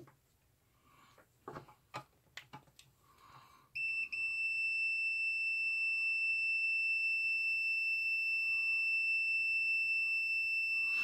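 A few light clicks of multimeter test probes being handled. About four seconds in, the OWON B33 digital multimeter's continuity beeper starts a steady high-pitched beep and holds it, signalling a low-resistance path between the mains plug's ground pin and the soldering iron tip.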